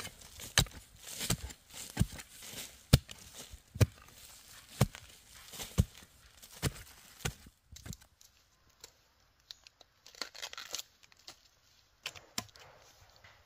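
Sharp chopping blows, about one a second for the first seven seconds or so, then softer rustling and tearing of plant stalks, as bamboo shoots are cut and handled.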